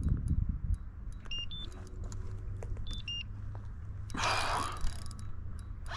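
Sounds of a freshly landed redfish being handled in a kayak: scattered clicks and light knocks over a steady low rumble, with a short rush of splashing or rustling noise about four seconds in. Twice, about a second and a half apart, comes a brief high two-note chirp.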